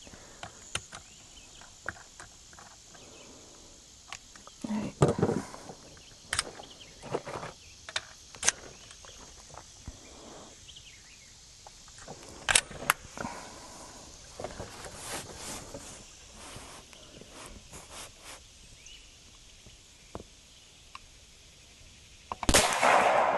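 Scattered clicks and knocks of a Seneca Dragon Claw .50 caliber PCP air rifle being handled: the open sight is adjusted with a tool, then there is one sharp loud click about halfway through as the rifle is cocked. Near the end the rifle fires a single loud shot.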